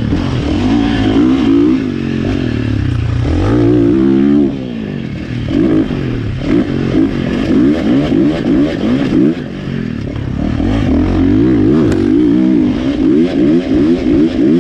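KTM dirt bike engine revving up and falling away over and over as the throttle is worked and gears are changed around a supercross track. Near the end it comes in quick short on-off throttle bursts.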